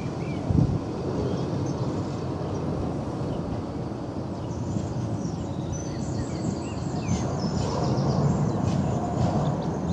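Steady low outdoor rumble with small birds chirping over it, the chirping busier in the second half.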